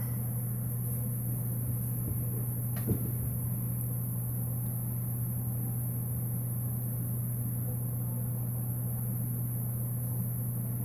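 Steady low hum of room noise, with one faint tap about three seconds in.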